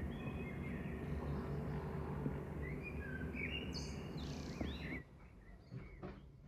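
Outdoor city ambience: a steady low hum of distant traffic with birds chirping over it. About five seconds in it cuts to a much quieter room with a few faint knocks.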